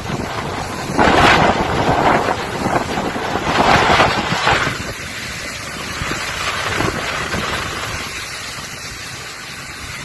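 Storm wind buffeting the microphone over the steady rush of heavy seas around a ship, with two louder surges, about one and four seconds in.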